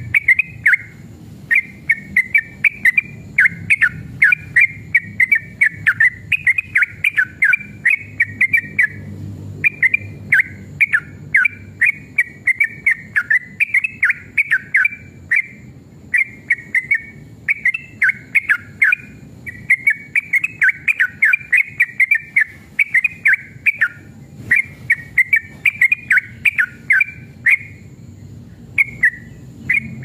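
Yellow-vented bulbul (trucukan) singing in full voice: long runs of quick, chattering whistled notes, phrase after phrase with only brief pauses between them.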